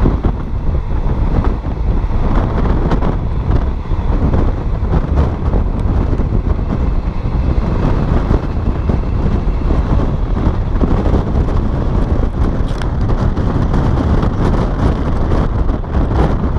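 Wind buffeting the microphone from a moving passenger train, over the steady rumble of the train running on the rails, with a few faint clicks near the end.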